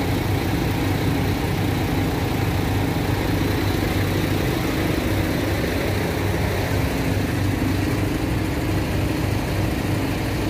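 Heavy diesel engines idling steadily, a continuous low rumble.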